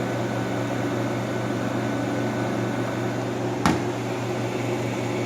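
1958 Carrier window air conditioner running in cooling mode: a steady compressor hum under the rush of its fan and air. One short knock about two-thirds of the way through.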